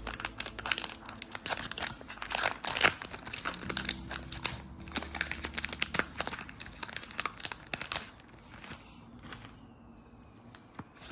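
Foil Pokémon booster pack wrapper crinkling and being torn open: a dense run of crackles that dies down about eight seconds in.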